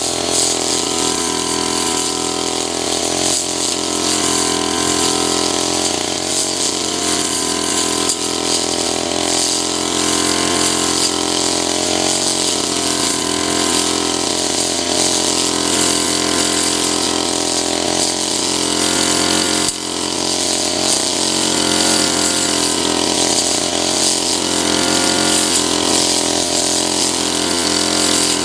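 Two-stroke backpack brush cutter running at working speed, its 40 cm metal blade cutting grass. The engine note rises and dips slightly as it works.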